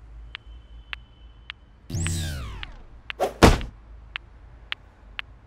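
Cartoon sound effects: a wall clock ticking about twice a second, a falling electronic sweep about two seconds in as the green beam shuts off, then two loud thuds.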